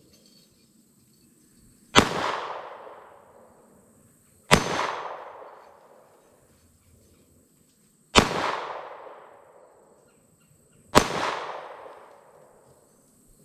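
Four shots from a Ruger SR22 .22 LR semi-automatic pistol, fired singly a few seconds apart, each sharp crack followed by a long fading echo.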